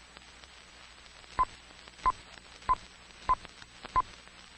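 Film-leader countdown beeps: five short high beeps at an even pace, about one every two-thirds of a second, starting a little over a second in, over the faint hiss and crackle of an old film soundtrack.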